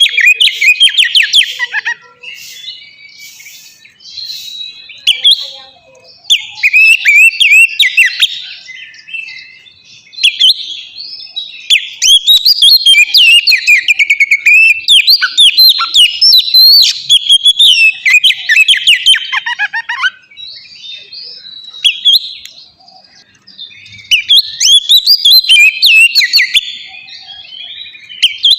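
Oriental magpie-robin (kacer) singing loudly: rapid, varied whistles and chattering notes in long song phrases, about four bursts with short pauses between them, the longest running for about eight seconds in the middle.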